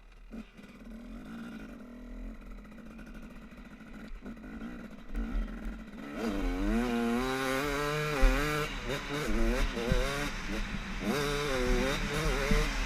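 KTM 250 SX two-stroke motocross bike engine running at a steady low speed. About halfway through it starts revving, its pitch rising and falling with the throttle as the bike gets under way.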